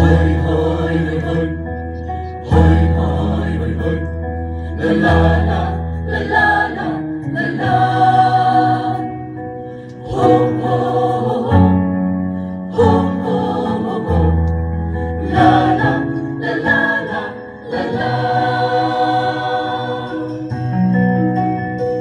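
Mixed choir of women and men singing in parts, amplified through stage loudspeakers, in sustained phrases of a few seconds each.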